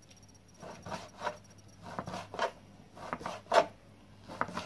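Kitchen knife slicing through a rolled, dry, flaky msemen flatbread on a cutting board: a series of short cutting strokes, about two a second.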